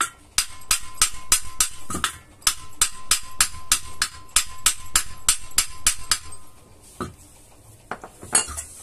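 Hammer striking the metal body of a small domestic water pump, about three or four blows a second with a ringing note and a short break about two seconds in. The blows knock the pump housing loose from the motor after its three nuts have been removed. The hammering stops about six seconds in, and a few separate knocks follow near the end.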